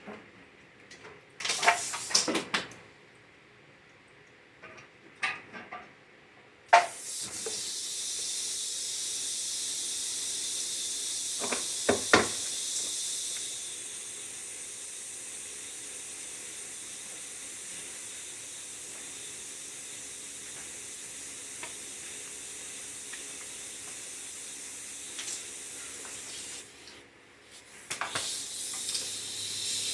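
Compressed air hissing steadily from a blow gun for about twenty seconds, louder for the first several seconds and then easing to a lower level. It is preceded by a few knocks and clatters of parts, and a second burst of air comes near the end.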